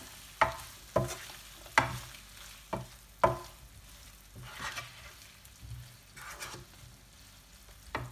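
Beef cubes with green chillies frying in oil in a nonstick wok, sizzling steadily while a spoon stirs them. The spoon knocks sharply against the pan several times in the first three and a half seconds, then scrapes more softly, with one more knock near the end.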